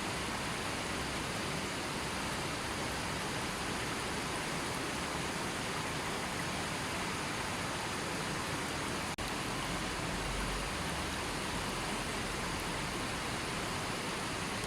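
River water flowing steadily over its bed, a continuous even rush, with a split-second dropout about nine seconds in.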